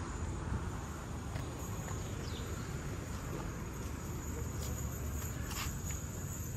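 Outdoor ambience: a steady low rumble with a faint, steady high-pitched tone above it and a few light clicks scattered through.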